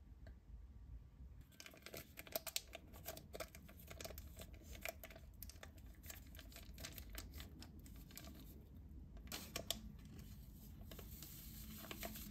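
Plastic candy-kit packaging crinkling and crackling as it is squeezed and handled, in many small sharp clicks. Near the end comes a hissing tear as a plastic film is peeled off a tray.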